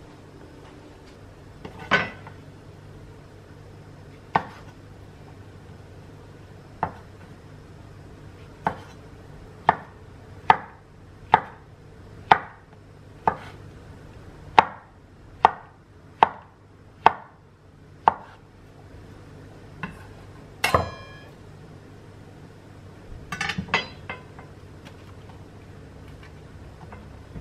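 Chef's knife slicing shiitake mushrooms on a wooden cutting board: single chops knocking on the board, a couple of seconds apart at first, then about one a second. Near the end comes a louder knock with a short ring, then a brief clatter.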